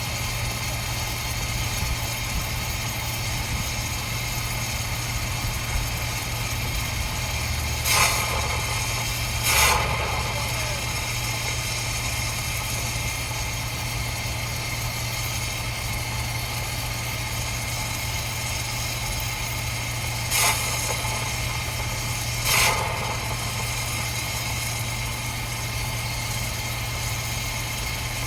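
Steady mechanical hum of machinery running, with four short hissing bursts: two about eight and ten seconds in, and two more about twenty and twenty-two seconds in.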